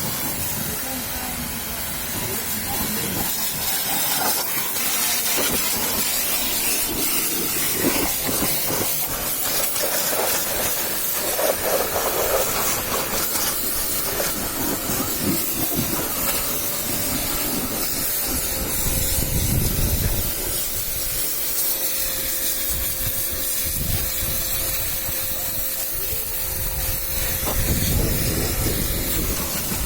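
Pressure-washer jet spraying water, a steady hiss.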